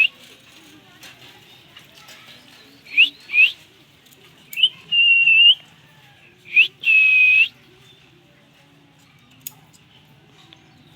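Parrot whistling clear, high notes in three bouts. First comes a pair of quick upward swoops, then twice a short swoop running into a held, steady whistle of about a second.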